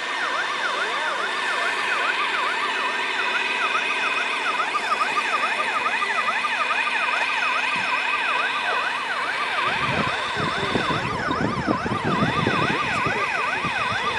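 An electronic siren yelping, its pitch sweeping rapidly up and down about three times a second. A lower, rumbling sound with shifting pitch joins about ten seconds in.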